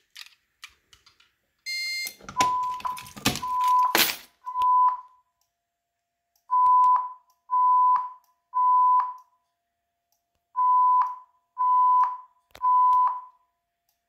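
Simplex fire alarm speaker strobe sounding a 1000 Hz temporal-three (code 3) evacuation tone: three half-second beeps, a pause, repeated three times. Just before and under the first beeps, a short high beep and a burst of clicks and knocks as the manual pull station is worked.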